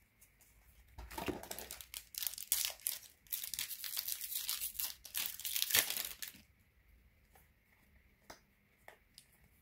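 Foil booster-pack wrapper crinkling and tearing as it is ripped open by hand, for about five seconds, then stopping; a few faint clicks of cards being handled follow.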